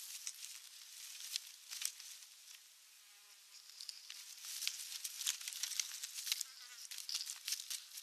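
Rustling and crackling of dry nest sticks under a high buzzing hiss, with quick ticks that come thicker and louder in the second half, as a common raven pecks and tugs at osprey chicks in the nest.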